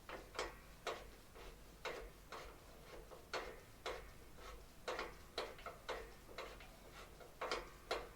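A run of light, sharp clicks at an uneven pace, about two or three a second, that stop just before the end.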